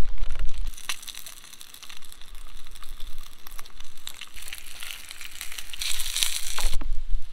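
Plastic packaging crinkling and rustling as it is handled, with scattered crackles, growing louder near the end.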